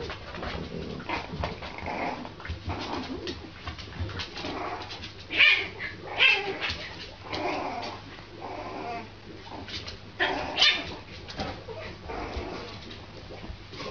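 French bulldog puppy barking and yipping in short bursts, with several louder yaps around the middle.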